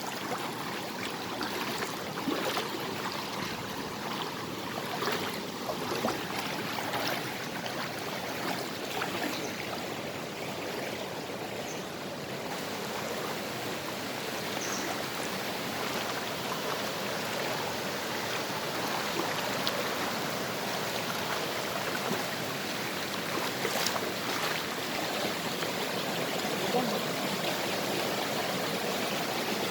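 Rocky mountain stream flowing and splashing steadily over stones, a continuous rushing that grows a little louder about halfway through, with a few faint clicks.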